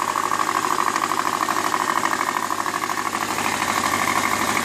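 Subaru EJ25 2.5 L flat-four engine idling cold with a loud, rapid, even knocking on every revolution, heard on the right side toward the front of the engine. With metal shavings in the oil, the owner takes it for rod knock rather than piston slap.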